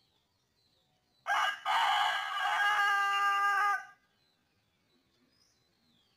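Rooster crowing once: a short opening note just over a second in, then a long held call lasting about two seconds.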